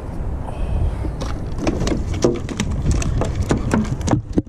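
A small halibut slapping and flopping on the wooden planks of a pier: a quick, irregular run of sharp taps and knocks. Wind rumbles on the microphone under it.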